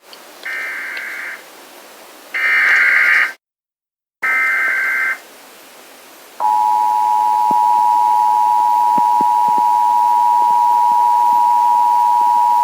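Emergency Alert System SAME header: three short bursts of shrill digital data tones about a second apart, encoding a Child Abduction Emergency (AMBER Alert). About six seconds in, the EAS two-tone attention signal (853 and 960 Hz played together) starts and holds steady.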